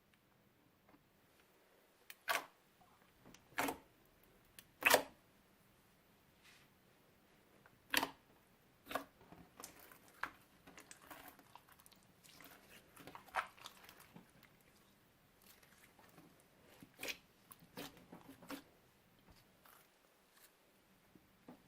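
Slime being squished and worked by hand, giving irregular sharp pops and crackles: about nine louder snaps spread unevenly, with softer crackling between them.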